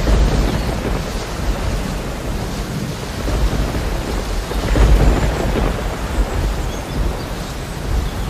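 Thunderstorm: steady heavy rain with low rumbling thunder, swelling about five seconds in.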